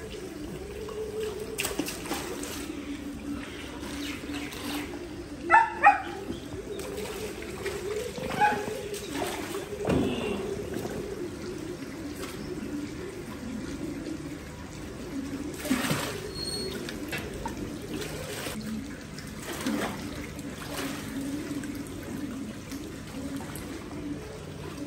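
Water pouring and trickling steadily into a freshly cleaned pond as it is refilled, with a few short animal calls over it, two loud ones close together about five seconds in.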